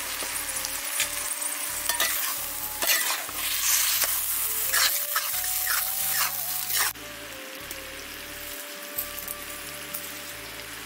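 Poi saag (Malabar spinach) and potatoes sizzling in a metal kadhai while a metal spatula stirs and scrapes them, with repeated sharp scrapes. Near seven seconds in the stirring stops suddenly, leaving a quieter steady sizzle.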